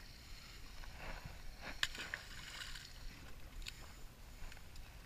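Water lapping and sloshing against a small boat's hull, with a steady low rumble and a couple of sharp clicks.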